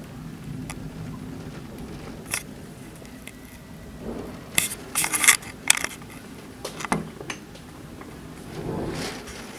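Storm noise heard through a window: a steady low rush of wind and rain with scattered sharp ticks and short rattles, a dense cluster of them about five seconds in and more near seven seconds.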